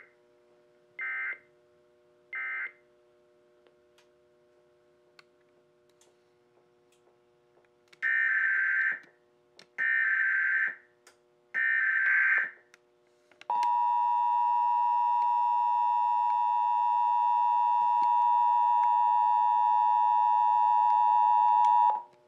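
Emergency Alert System data tones from the EAS encoder/decoder equipment: three short warbling SAME bursts about a second apart, then after a pause three longer bursts as the alert header is relayed. These are followed by the steady two-tone EAS attention signal for about eight seconds, which cuts off just before the end.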